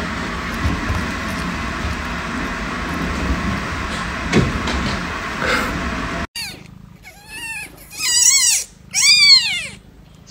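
A steady hiss with a few soft clicks while a kitten eats from a dish. Then a newborn kitten mews several times: high, thin calls that rise and fall in pitch, the two loudest about a second apart near the end.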